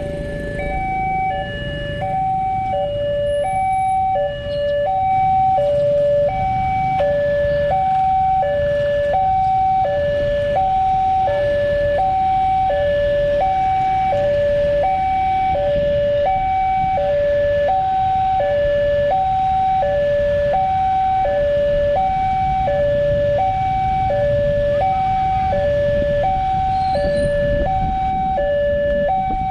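Railway level-crossing warning alarm sounding a two-tone electronic chime, a high and a low note alternating about every half second, steadily: the signal that a train is approaching the crossing. A low rumble runs underneath and grows louder about six seconds in.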